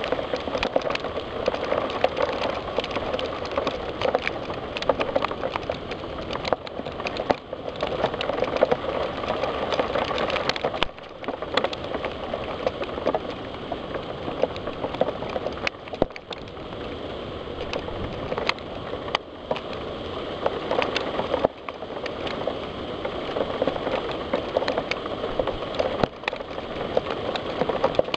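Rain falling steadily, with many sharp ticks of drops striking the window glass; it drops away briefly a few times.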